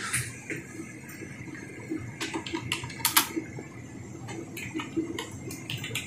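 Computer keyboard being typed on: quick, irregular key clicks that start about two seconds in, as a ping command with an IP address is entered.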